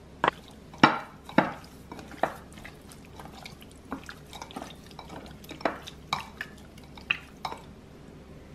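Hand mixing seasoned raw catfish pieces in a glass bowl: an irregular string of wet squelches and sharp clicks against the glass, loudest in the first second and a half, then sparser.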